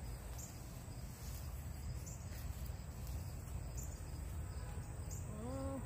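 Outdoor insect chorus, a steady high drone like crickets, over a low rumble. A short voice sound comes in near the end.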